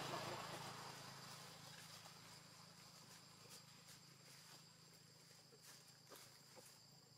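Faint forest ambience: a steady high-pitched insect drone, with a few soft scattered clicks, while a louder low noise dies away over the first couple of seconds.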